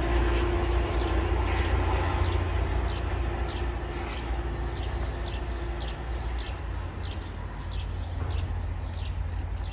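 MBTA commuter train rumbling as it moves away, fading over several seconds. A bird calls over it with short downward chirps, about two a second.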